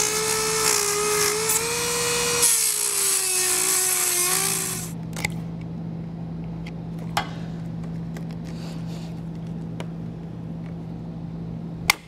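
Handheld Dremel rotary tool whining as it cuts through a plastic radiator shroud, its pitch wavering and dipping, with a short break, then stopping about five seconds in. After that, a low steady hum with a few light clicks and a sharp knock near the end.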